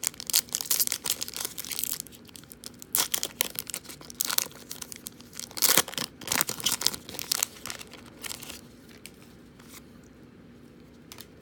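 Foil wrapper of a 2018 Donruss football trading card pack being torn open and crinkled by hand: a run of quick rips and crackles, loudest about halfway, dying away over the last few seconds.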